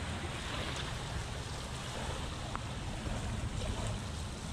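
Steady wash of small waves lapping on a sandy shore, with a low rumble underneath.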